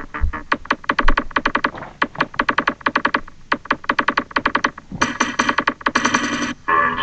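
Electronic techno music: a synthesizer playing fast repeated chord stabs, about eight a second, breaking off briefly a few times, then longer held chords near the end.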